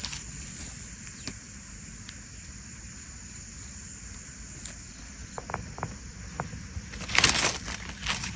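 A steady high-pitched insect drone with a few faint clicks, then, about seven seconds in, loud rustling and crunching of leaves and brush as someone moves through forest undergrowth.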